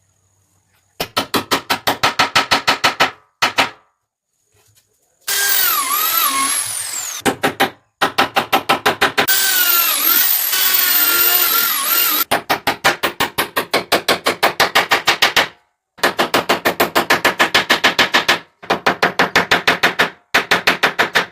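Handheld power tool, such as a drill, running in repeated bursts of a few seconds each, with short pauses between. Each burst is a fast, even rattle of about ten knocks a second. In two of the longer bursts a whine slides up and down in pitch.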